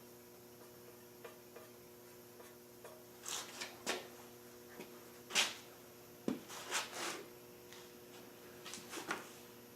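A handful of short scrapes and rubs, as of objects being handled and slid on a work surface, most of them between about three and nine seconds in, over a steady electrical hum.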